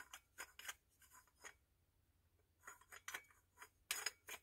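Faint clicks and light scrapes of a metal lightsaber hilt's parts being handled and fitted back together, in short clusters with a pause of about a second in the middle; the sharpest clicks come near the end.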